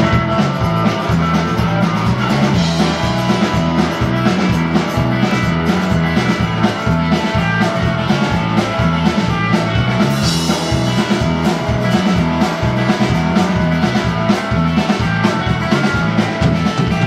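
Live rock band playing an instrumental intro: strummed acoustic guitar, electric guitar, bass guitar and drum kit keeping a steady beat.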